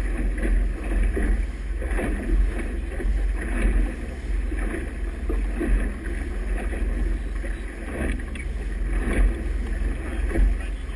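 Motorboat under way in choppy water: a steady low engine rumble under the rush and splash of its wake and waves, swelling every second or two, with wind buffeting the microphone.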